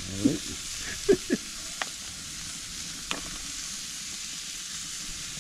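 Food sizzling steadily in a hot pan as it is stir-fried, with two sharp clicks partway through.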